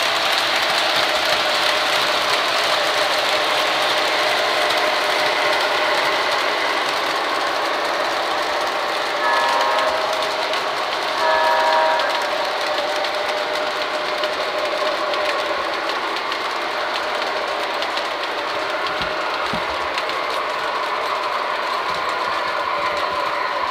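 O gauge model diesel train running on three-rail track, its wheels and motors making a steady rolling rattle. Its horn sounds twice, briefly, about nine and eleven seconds in.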